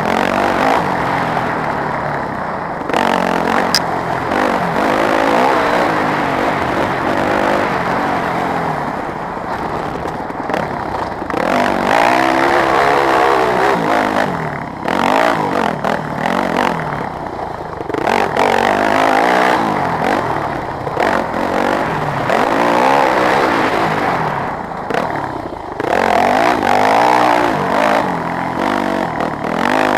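Yamaha WR250F four-stroke single-cylinder dirt bike engine revving hard and backing off over and over while it is ridden on a dirt track, its pitch rising and falling with brief drops where the throttle is shut.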